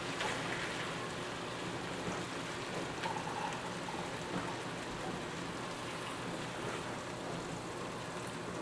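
Coated chicken breasts frying in butter in a pan: a steady sizzle.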